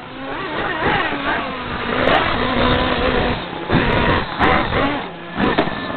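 1/10-scale radio-controlled off-road race cars running down the straightaway, their motors whining with a pitch that rises and falls as they speed up and slow down.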